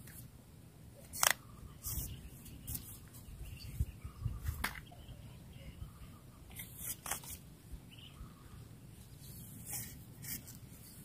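A few scattered sharp clicks at irregular intervals, the loudest about a second in, over a faint low rumble.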